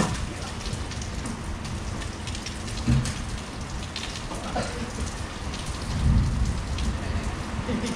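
Steady rain falling, with a couple of dull thumps about three and six seconds in.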